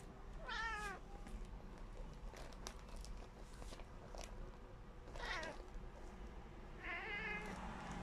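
Tabby cat giving three short meows with a wavering pitch, the last one the longest, while watching a fly it wants to catch.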